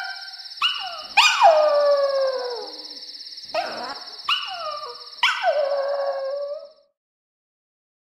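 A dog howling in a string of about five short howls, each sliding down in pitch, over a steady high tone; it all cuts off about seven seconds in.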